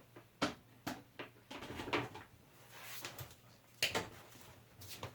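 Household clatter: a handful of separate sharp knocks and clicks, as of objects being handled and set down in a small room. The loudest come about half a second and about four seconds in.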